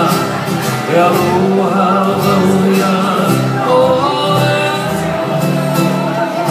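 Live music: a man singing a slow melody to his own steadily strummed acoustic guitar.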